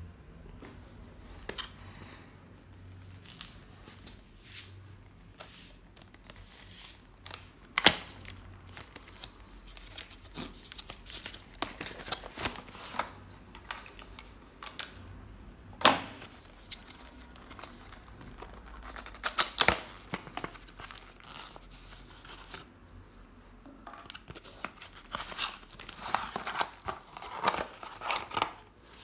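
Cardboard boxes and plastic wrapping being handled and opened: scattered sharp knocks and scrapes, the loudest about eight and sixteen seconds in, then a stretch of rustling and crinkling of plastic and paper near the end.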